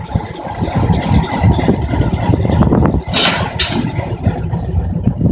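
Diesel locomotive engine idling with a steady low rumble, with two short hisses of released air about three seconds in.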